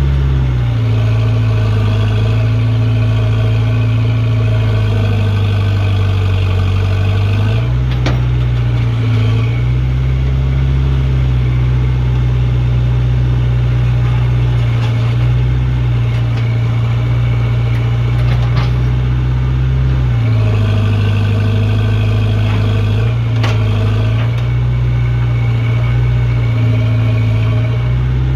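Backhoe loader's diesel engine running steadily, its speed stepping up and settling back down several times as it works, with a couple of sharp knocks.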